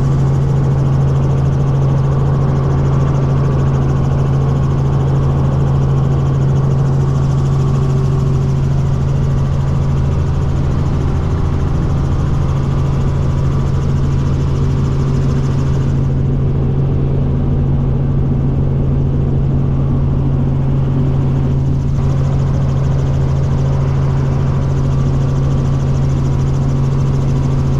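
Helicopter cabin noise in cruising flight: a steady, loud engine and rotor drone with a strong low hum.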